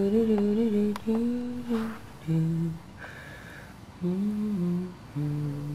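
A person humming a slow tune, holding one or two notes per phrase, in about five short phrases with brief pauses between them.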